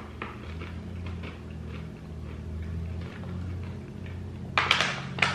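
Faint ticks and mouth sounds of chewing soft toffee, then, near the end, a sharp crinkle of the snack pouch being handled.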